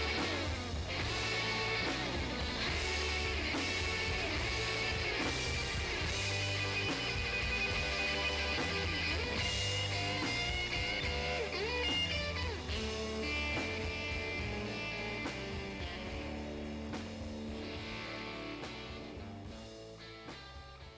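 Instrumental rock music led by electric guitar, with bass and a steady beat, fading out over the last few seconds.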